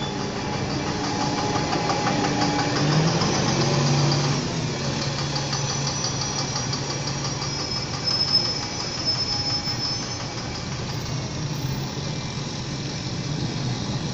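Steady vehicle running noise, a low engine hum under a wide rumble.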